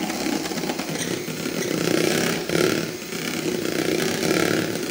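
Electric hand mixer running steadily, its twin wire beaters whisking beaten egg whites in a bowl.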